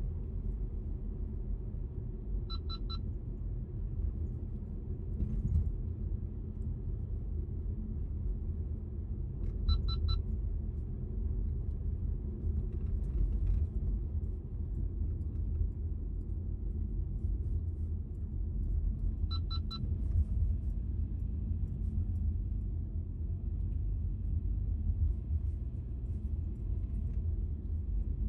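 A car driving, with a steady low rumble of road and engine noise. Three times, a short run of quick electronic beeps sounds over it.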